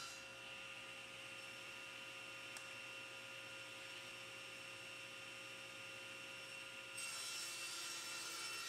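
Faint steady electrical hum with a few steady tones and a light hiss, a little louder from about seven seconds in; no sawing is heard.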